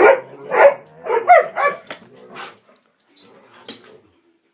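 Dogs barking and yelping in rough play: about five loud barks and yelps in quick succession in the first two seconds, then only faint sounds. The noise is excited play, not fighting.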